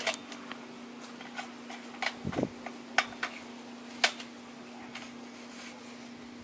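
Metal parts of a Rockwell jaw stand knocking and clinking as its tube is fitted into the clamp head and the stand is put together: a handful of separate light knocks in the first four seconds, over a steady low hum.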